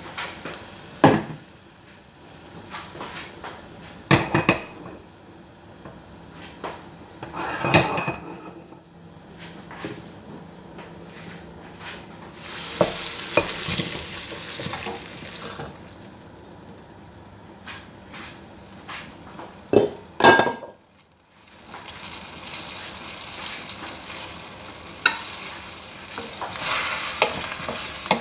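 Chicken stew with carrots and peas being scooped into a stainless pressure cooker on a lit gas burner: a utensil scrapes and clinks against the metal pot, with a few sharp clanks spread through. Stretches of sizzling come as food goes into the hot pot.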